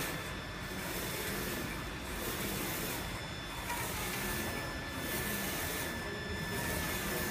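UV flatbed printer printing on ceramic tile: the print-head carriage shuttles back and forth, giving a steady mechanical hiss with a thin whine that swells and dips with each pass, about every second and a half.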